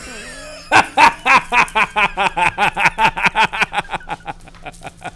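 A man laughing a long, rapid staccato villain's laugh, about five 'ha's a second, that starts just under a second in and fades away near the end. It gloats over his kidnapping of the doctor.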